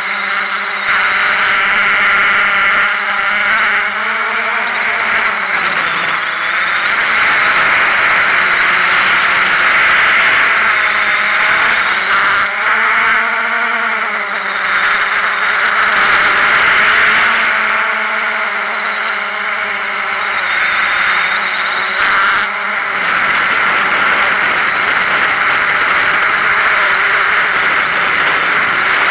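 Small drone's electric motors and propellers whining steadily, the pitch sliding up and down now and then as the motors change speed.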